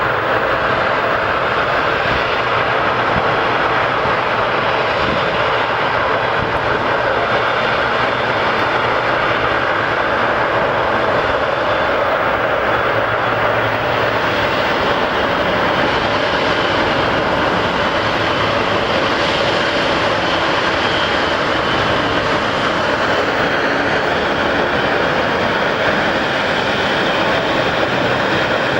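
Jet engines of an Emirates Boeing 777-300ER (GE90-115B turbofans) running with a loud, steady rushing noise that holds the same level throughout.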